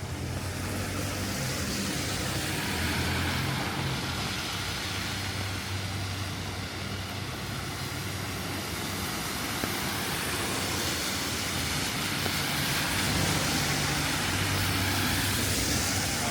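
Road traffic on a rain-wet street: vehicles pass with a hiss of tyres on wet asphalt over a low engine hum, swelling twice.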